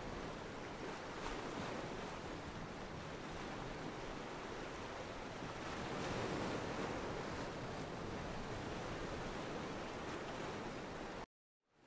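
Ocean surf washing steadily onto a beach, a continuous rushing hiss of breaking waves. The sound cuts out completely for about half a second near the end, then fades back in.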